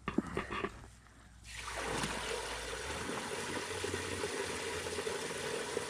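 Water gushing from the slots of a perforated diffuser pipe into a shallow pool on a rubber pond liner. It starts about a second and a half in and then runs steadily. This is the first pumped flow reaching a DIY bog filter.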